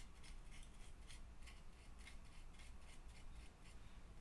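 Faint, quick scratching strokes, several a second, of a glue-activator brush rubbed over the joints of a wooden shelf, working the activator into the gaps so the superglue sets at once.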